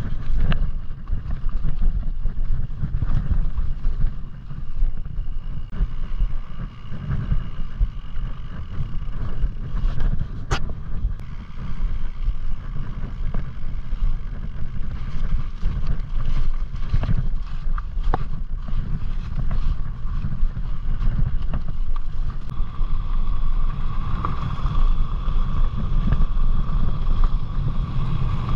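Wind rumbling over the microphone of a mountain bike's riding camera as the bike rolls down a rough snowy and stony track, with a few sharp knocks from the bike part way through.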